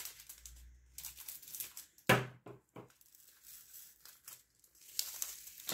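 Small clicks and rustling from diamond painting: a drill pen tapping among resin drills in a plastic tray and pressing them onto the adhesive canvas, with one sharper knock about two seconds in.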